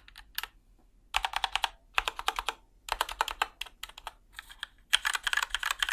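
Typing on a Keychron K4 mechanical keyboard fitted with Keychron Yellow medium-weight linear switches, which have no click. The keystrokes come in quick bursts of about half a second with short pauses between.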